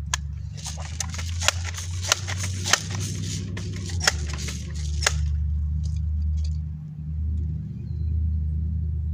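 Crosman M4177 multi-pump air rifle being pumped: about nine quick clicking strokes with a rush of air, roughly half a second apart, stopping about five seconds in. A steady low rumble runs underneath.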